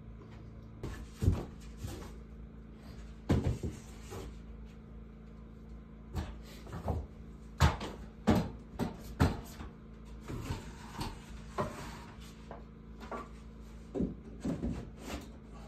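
Wooden ceiling boards knocking and clattering as they are handled, carried and lifted up against the ceiling joists: a series of irregular knocks and bumps, some sharper than others, over a faint steady hum.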